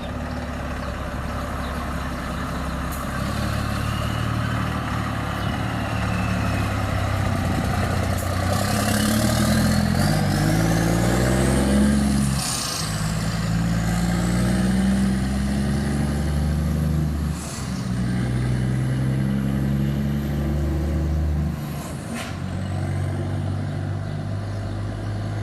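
Scania R450 truck's 13-litre inline-six diesel with a modified exhaust, rumbling as the revs climb. The revs drop sharply three times, each drop with a short hiss of air, and a high whistle glides up and down with the revs.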